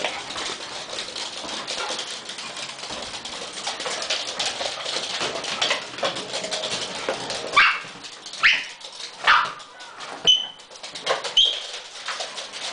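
Small dogs excited for their dinner, whining and yipping, with claws clicking and scrabbling on a wooden floor; about halfway through come five sharp, high yips, the loudest sounds.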